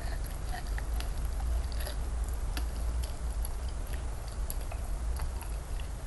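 Close-up wet chewing of raw salmon sashimi, with many small irregular sticky smacks and clicks, over a steady low hum.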